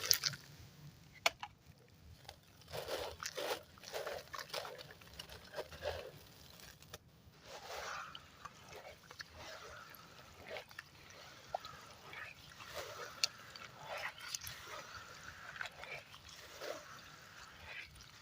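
Cement stone and sand cement chunks crushing in water: an irregular series of wet, gritty crunches with sharp cracks and some sloshing.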